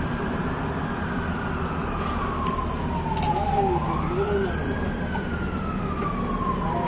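A siren wailing in slow rising and falling sweeps, about two cycles, over a steady low workshop hum, with a few light clicks.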